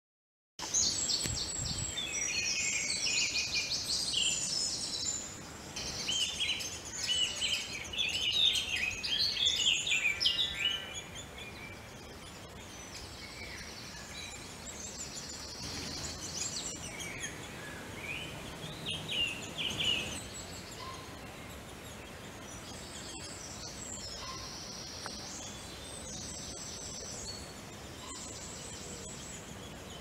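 Woodland birdsong: several small birds singing and chirping at once, cutting in about half a second in. It is busiest for the first ten seconds or so, then thins to scattered phrases over a steady background hiss.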